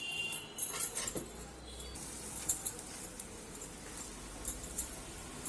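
Hands kneading a loose, wet moong-and-rice-flour dough, with soft squelching and scattered small clicks.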